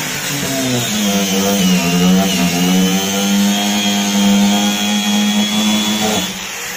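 Angle grinder running with its cutting disc grinding into the case of a 6V sealed lead-acid battery. The motor's pitch dips briefly about a second in, then holds steady under load, and it stops shortly before the end.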